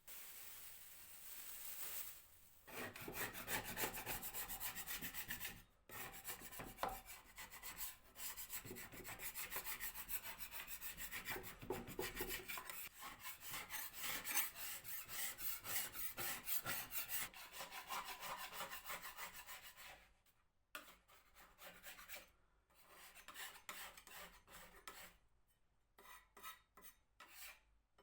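Rapid back-and-forth abrasive strokes on wood, a hand tool rubbing the dresser's surface; a short steady hiss comes first, and about twenty seconds in the strokes become sparser and quieter.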